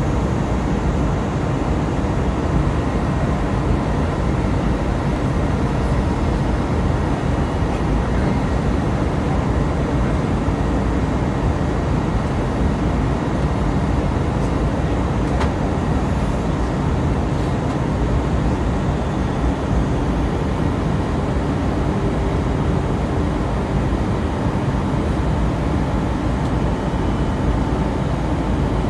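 Steady airliner cabin noise on approach: an even, low rumble of engines and rushing air heard from a window seat inside the cabin.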